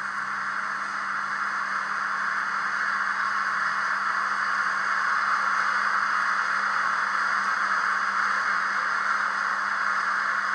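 Station-platform sound of a freight train pulling in, played back by the Fleischmann BR 141 H0 model's digital sound decoder through its small onboard loudspeaker. It is a steady rushing, rolling noise that swells over the first few seconds and then holds.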